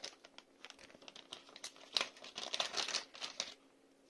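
Clear plastic bag crinkling as it is handled, in irregular crackles that are busiest in the second half.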